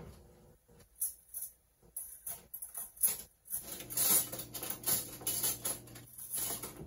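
Metal cutlery clinking and rattling as a kitchen drawer is rummaged through for a spoon, in scattered clicks that grow busier about four seconds in.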